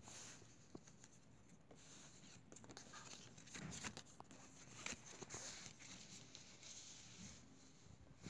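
Faint rustling and scratching with scattered light clicks: thin paper transit cards being handled and shuffled over a cloth.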